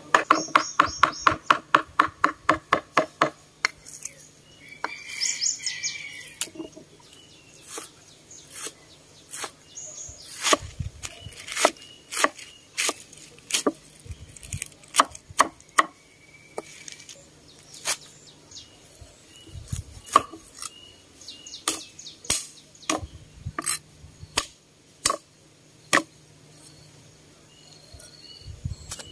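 Steel cleaver chopping on a wooden chopping block. It makes a fast, even run of about five strokes a second for the first three seconds or so, then slower, irregular knocks as it slices through spinach leaves. Birds chirp in the background.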